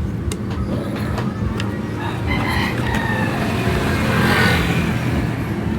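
A rooster crowing from about two seconds in to near the end, over the steady low hum of a running vehicle engine.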